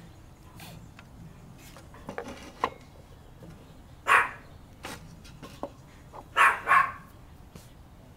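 A dog barks three times: once about halfway through, then twice in quick succession a couple of seconds later. Between the barks come light clicks and scrapes of a dusty heatsink and plastic fan shroud being brushed and handled.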